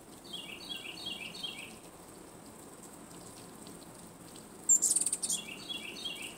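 A small bird chirping in quick runs of about four short, falling notes, twice. Between the two runs comes a brief, louder rattle of clicks.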